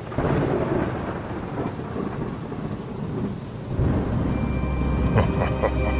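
Thunderstorm sound effect: a sudden thunderclap that rumbles away over steady rain. A low drone with held tones comes in about four seconds in.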